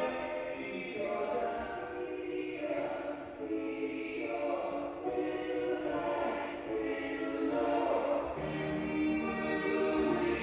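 Music with a choir of voices singing slow, held notes that change pitch in steps.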